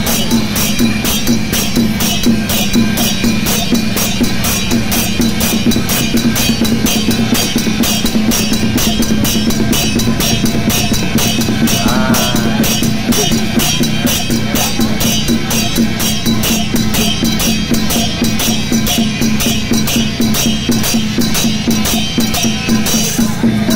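Music with a fast, steady drum beat.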